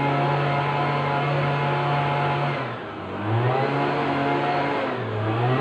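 An engine running steadily at one speed. About three seconds in it is throttled down, then revved back up, and it dips and rises again near the end.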